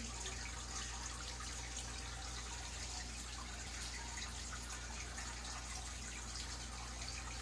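Aquarium water trickling and dripping steadily, over a steady low electrical hum from the tank's running equipment.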